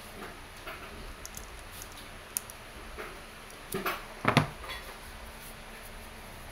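Light scattered clicks of an airsoft gas-pistol magazine being handled and loaded with BBs, then a couple of louder knocks about four seconds in as the metal magazine is set down on its cardboard box.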